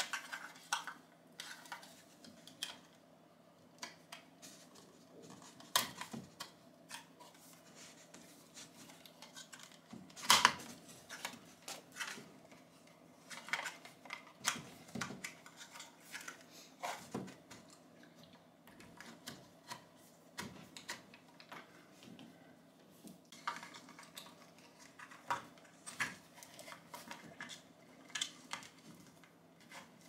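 Scattered clicks, rustles and knocks of electrical cables being handled and pushed through a hole in a wall, with the sharpest knock about ten seconds in.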